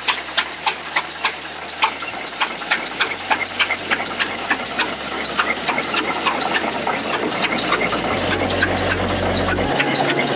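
Antique steel-wheeled tractor's engine running at a steady idle, with a regular clicking beat of about two to three clicks a second that quickens after a couple of seconds.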